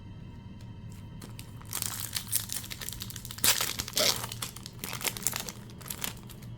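Foil wrapper of a Pokémon mini booster pack crinkling as it is handled, starting about a second and a half in and loudest about halfway through.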